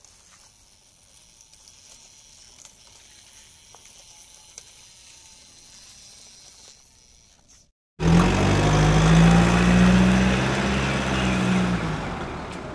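An engine running with a steady low hum cuts in suddenly about eight seconds in and slowly fades away. Before it there is only faint background hiss with a few light ticks.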